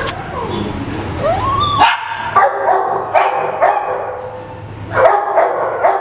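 Dogs barking in a shelter kennel: a couple of yelping glides, then from about two seconds in a run of short, sharp barks, two or three a second.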